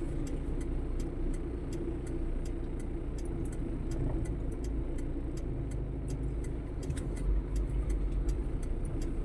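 Steady low rumble of a car engine and road noise, with a faint, fast, high-pitched ticking of about five ticks a second.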